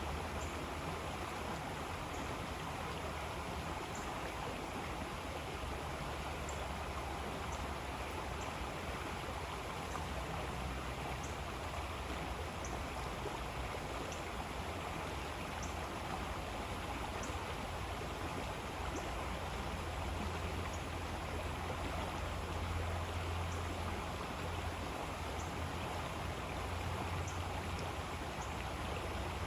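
River water flowing steadily, a continuous rushing with a deep low rumble. Short, faint high chirps recur about every second or two.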